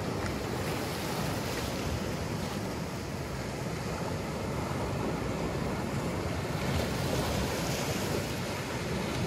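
Sea surf washing and breaking steadily against a rocky shoreline, with wind buffeting the microphone.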